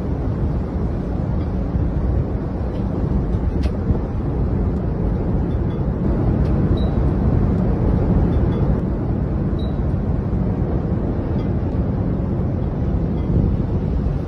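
Steady, loud low rumbling noise, with a faint click about three and a half seconds in.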